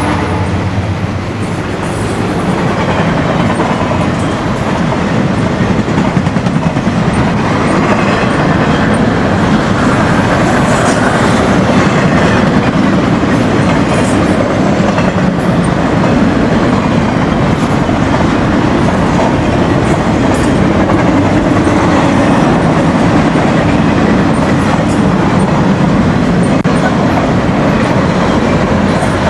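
Intermodal freight train of flatcars loaded with highway trailers rolling past close by: a loud, steady rumble and clatter of steel wheels on the rails, with clickety-clack over the rail joints.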